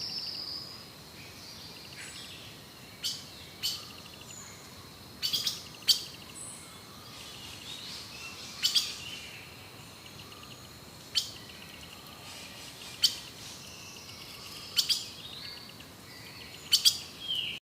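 Forest birds calling: loud, sharp short chips every second or two over softer high trills and twittering.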